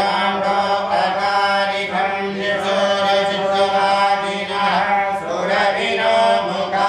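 Hindu mantra chanting in long, held notes over a steady low drone.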